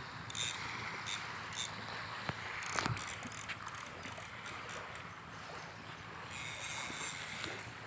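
Fishing reel ticking and winding as a hooked fish is fought on a heavy rod, with scattered clicks over a steady hiss.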